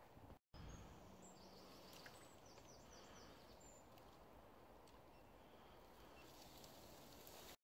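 Faint outdoor ambience with a bird chirping a quick run of high notes about two seconds in.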